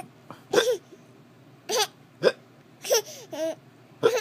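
A person hiccuping repeatedly: about six short, sharp hiccups over four seconds, a few carrying a brief voiced squeak.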